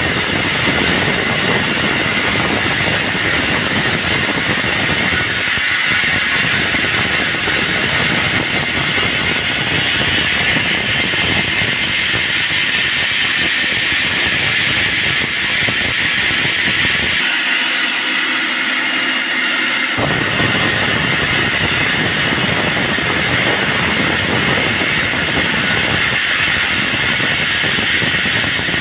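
Band sawmill running, a loud steady machine noise with a strong high hiss. About two-thirds in, the low rumble cuts out abruptly for a few seconds, then returns.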